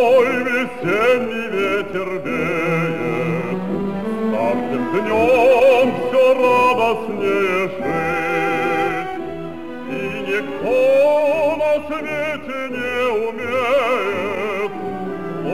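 Operatic singing with strong vibrato over orchestral accompaniment, played on a cassette radio.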